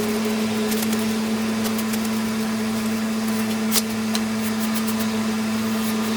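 A steady low motor hum with a few faint ticks.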